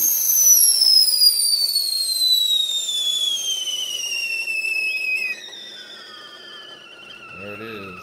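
Primula Stewart stainless steel stovetop kettle whistling with the water at the boil. It is a high, clear whistle that falls steadily in pitch. About five seconds in it suddenly gets much quieter and keeps sliding lower.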